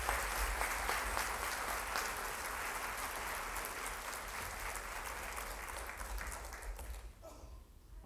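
An audience applauding. The clapping thins out gradually and dies away about seven seconds in.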